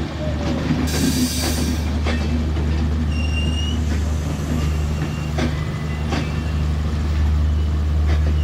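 An EMD diesel-electric locomotive idles with a steady low hum while passenger coaches roll slowly past on the next track, their wheels knocking over rail joints at intervals and giving a few brief high squeals. There is a short hiss about a second in.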